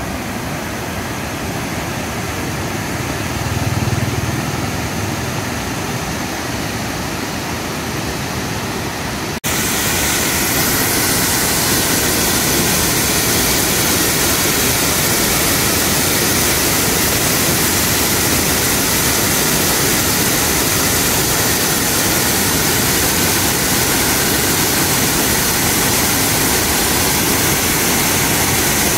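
Steady rush of muddy floodwater pouring through a dam's open spillway gates and churning below. About nine seconds in it cuts abruptly to a louder, fuller rush.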